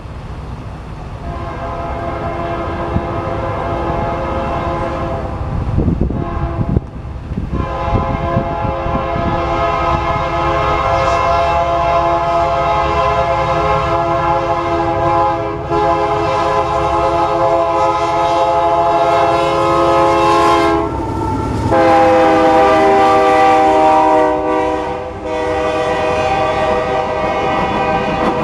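BNSF freight locomotive's air horn sounding a chord in a series of long blasts as the coal train approaches and passes, over the low rumble of the diesel locomotives. The horn's chord shifts pitch about two-thirds of the way through, as the locomotive goes by. Near the end, hopper cars rolling past add to the rumble.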